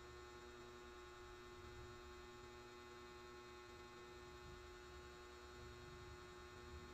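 Near silence: a faint steady hum of room tone, with no distinct key clicks.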